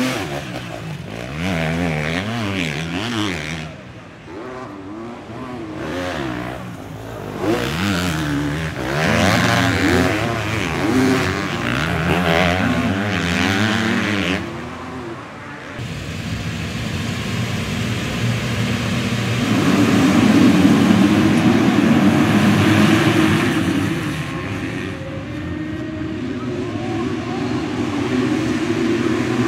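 250cc motocross bikes racing past, engines revving and dropping as the riders work the throttle and shift. About halfway through the sound thickens into many bikes at once, a pack passing together, which is the loudest part.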